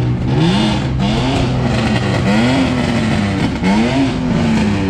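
A car engine revving up and falling back in about four swells as the car drifts, over the hiss of tyres sliding on asphalt.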